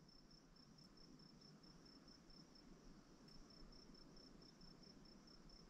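Faint, high, rapidly pulsed insect chirping that breaks off about halfway through and starts again near the end, over near silence.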